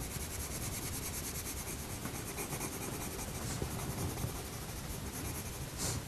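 Coloured pencil rubbing and scratching on drawing paper in small shading strokes, faint and continuous, with a brief louder swish near the end.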